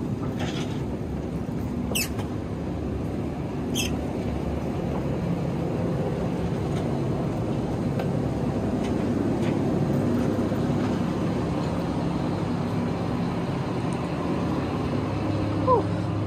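Ferry's engines running with a steady low rumble and hum. Two short high squeaks come about two and four seconds in, and a brief falling squeak near the end.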